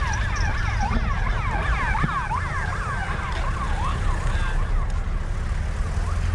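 Ambulance siren in a fast yelp, its pitch sweeping rapidly up and down over and over, fading out about five seconds in as the ambulance van drives past. A steady low rumble of traffic runs underneath.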